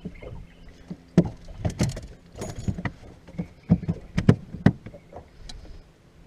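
A run of irregular sharp knocks and thumps on a boat, about a dozen hits in all, several landing close together in twos and threes.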